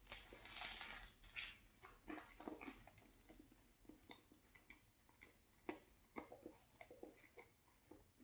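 Quiet, irregular chewing and mouth sounds of a person eating a chicken sub sandwich: soft wet smacks and clicks at uneven intervals, a little louder in the first second.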